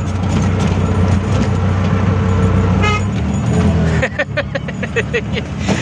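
Auto-rickshaw engine running steadily on the move, heard from inside the passenger cabin. About four seconds in its drone drops off and a quick run of short pitched sounds follows.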